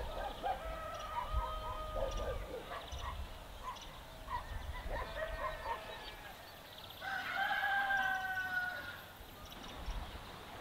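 Chickens clucking in short repeated calls, then a rooster crowing in one long call about seven seconds in.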